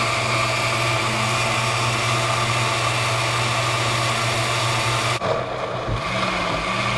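Countertop blender running steadily, grinding cooked tomatoes, chiles, onion and garlic into salsa. About five seconds in it breaks off briefly and the motor comes back up to speed, its pitch dipping and then rising.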